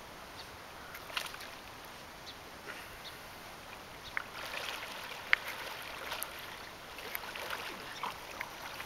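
Water splashing as a pudelpointer puppy paddles through a shallow river, over a steady hiss of flowing water. The splashes are scattered and get busier in the second half, with one sharp splash a little past five seconds in.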